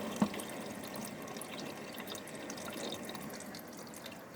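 Water running into the empty drum of a 2023 LG ThinQ 8 kg washing machine as it fills at the start of its Tub Clean cycle, a steady hiss of inflowing water with a single sharp click about a quarter second in.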